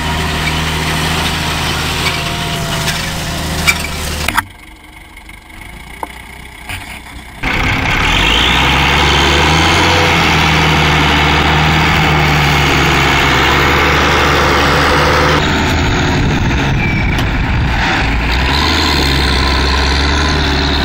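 Farm tractor diesel engines running in a string of short clips: a Massey Ferguson 6180 for the first few seconds, then after a quieter stretch a yellow Ursus tractor running loud and steady. Near the end the Ursus is pulling a trailer up a slope under load.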